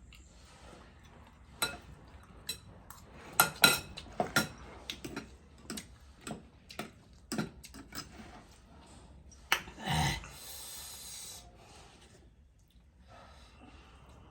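Eating sounds: cutlery clicking against a dish with crunchy bites of chatpat, a spicy puffed-rice snack, in a string of sharp irregular clicks. A louder knock about ten seconds in is followed by a short rustling hiss.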